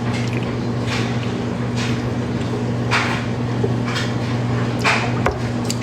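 A steady low hum, with a few short soft noises about once a second and a sharp click about five seconds in.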